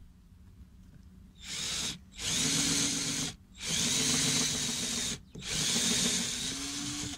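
Cordless drill boring a small pilot hole in a thin wooden strip to keep the wood from splitting. It runs in four bursts with short pauses between them, the motor pitch rising as each burst spins up.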